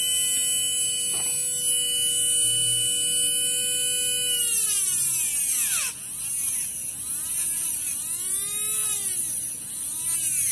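A Tamiya Hyper-Dash mini 4WD motor spinning a propeller-shaft gear, whining at a steady pitch. About four seconds in, a hand file is pressed against the spinning gear to trim it. From then on the whine sags and recovers again and again as the filing loads the motor, with a high scraping hiss from the file.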